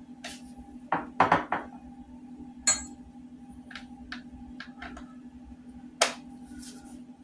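Metal sockets and tools clinking and clattering as they are handled, a string of sharp separate clinks with a strong one about six seconds in, over a steady low hum.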